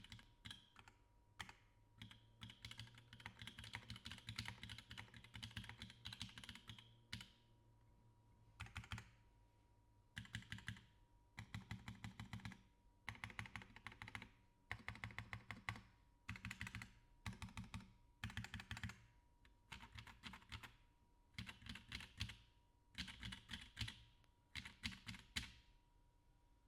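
Typing on a custom mechanical keyboard with lubed linear switches, an aluminum plate and GMK keycaps. Keystrokes come in quick bursts of one to two seconds separated by short pauses, with a longer unbroken run of typing in the first several seconds.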